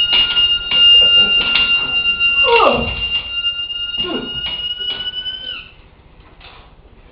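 Balloon helicopter toy whistling steadily as air rushes out of the balloon through its rotor nozzle. About five and a half seconds in, the tone sags slightly and cuts off as the balloon runs out of air. Irregular knocks and rustles sound over it.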